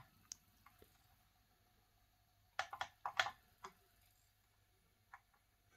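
Quiet clicking from the front-panel skip button of an NAD 5440 CD player being pressed to skip tracks. A few faint clicks come first, then a quick run of about five clicks midway and one more near the end.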